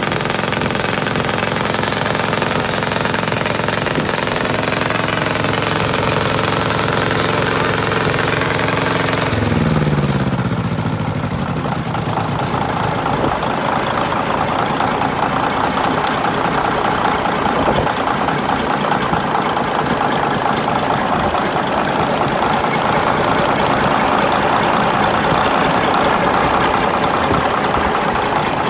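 A Caterpillar D8's two-cylinder petrol pony engine running at a steady speed. About nine or ten seconds in its pitch falls and it settles into a rougher, knocking run for the rest of the time.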